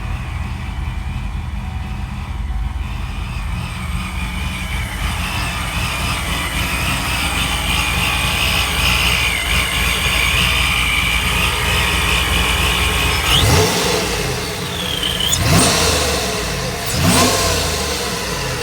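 Supercharged Ford F-150 pickup engine idling with a steady rumble and a high whine over it, then revved three times in quick blips near the end.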